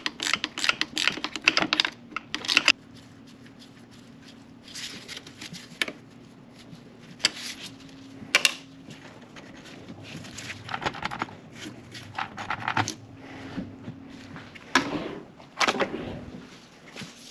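Rapid clicking of a hand ratchet for the first few seconds, then scattered clinks and knocks of tools against metal parts, over a faint steady hum.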